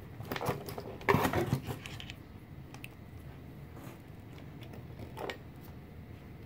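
Small metal tools and test leads clattering and rattling as they are picked up from a cluttered workbench, loudest about a second in, with one more click about five seconds in. Under it, the DPS5015 module's small cooling fan runs steadily.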